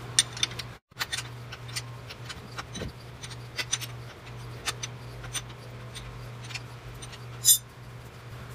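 Wrench clicking repeatedly and irregularly as the nut is backed off an outer tie rod end's stud, over a steady low hum, with one short, louder rasp near the end.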